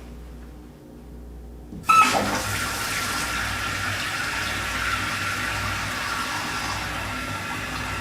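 Water rushing into a newly installed toilet's empty tank through its fill valve as the supply is turned on. It starts suddenly about two seconds in and runs on as a steady hiss with a thin whistle-like tone in it.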